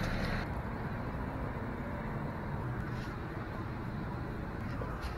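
Steady low rumble of road traffic. At the start a drink is being poured from a paper cup into a plastic bottle, and the pouring stops about half a second in.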